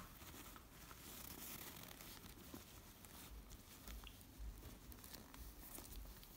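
Faint rustling of a satin drawstring pouch being opened by hand as a cardboard perfume box is pulled out of it, with a few soft taps and bumps.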